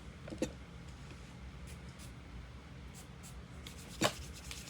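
Hands handling a moisturizer bottle: faint rustling, with a short click just under half a second in and a sharper click about four seconds in.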